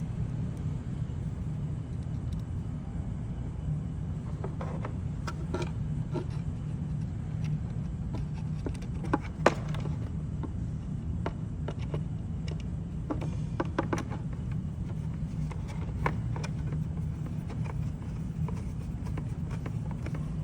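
Scattered small clicks and taps of hand work, fitting a screw and the parts of a side-mounted camera, over a steady low hum. The loudest click comes about halfway through.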